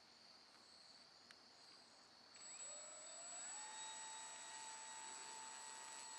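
Hobbico Electristar RC airplane's electric motor and propeller spinning up a little over two seconds in: a whine that rises in pitch, then holds steady.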